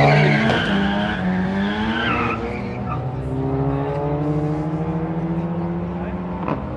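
Two drag-racing cars, a Honda Civic and a Volkswagen hatchback, accelerating hard away down the strip, their engine notes climbing and shifting for the first couple of seconds, then a steadier, quieter drone as they pull away.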